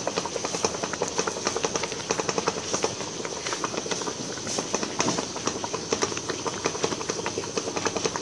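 Water at a rolling boil in a stainless steel steamer pot, bubbling with a dense run of rapid, irregular pops, under a steady high-pitched hiss.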